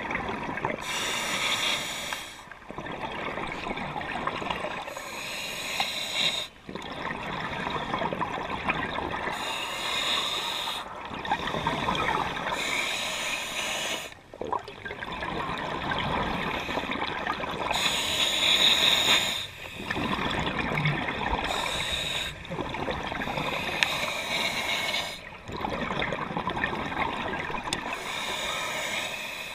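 Scuba diver breathing underwater through a Mares regulator: a hissing inhale followed by a burst of bubbling exhaust, the cycle repeating every few seconds.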